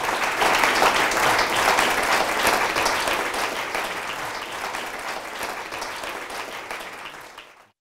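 Audience applauding, starting suddenly, slowly fading and then cut off near the end.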